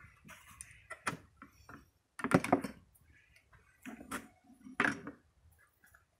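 Hand handling of tools and parts on a workbench: a few irregular clicks and knocks, the loudest clatter about two and a half seconds in. The angle grinder is not running.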